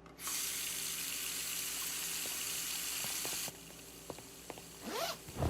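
Water running steadily, then cut off sharply a little over three seconds in. Near the end a short sound rises in pitch, followed by a brief thump.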